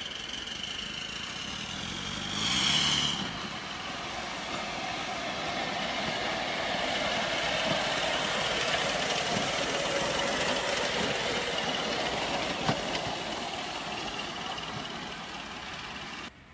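Miniature one-passenger steam locomotive running with a steady hissing, mechanical noise that builds slightly towards the middle. A brief, louder high-pitched blast comes about two and a half seconds in. The sound cuts off suddenly near the end.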